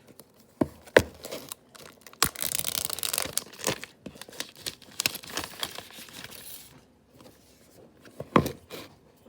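Phone box packaging being torn open and crinkled by hand, with a longer tearing stretch about two to four seconds in. Scattered clicks and taps from handling the box, with a sharper knock near the end.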